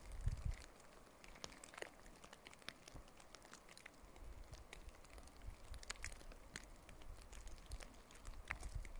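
Sleet pattering: many faint, irregular little ticks of wet snow landing, over a low rumble that comes and goes.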